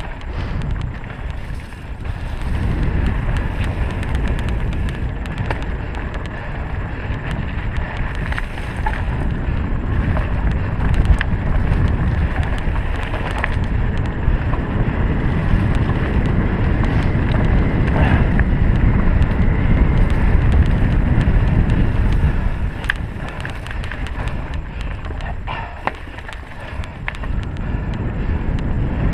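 Wind buffeting the microphone on a moving full-suspension 2016 Trek EX9 29 mountain bike, a steady rush of noise with scattered clicks and rattles from the bike over the trail; it eases for a few seconds near the end.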